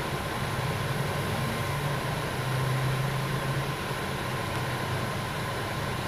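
Steady low mechanical hum over background noise, a little louder for about a second near the middle.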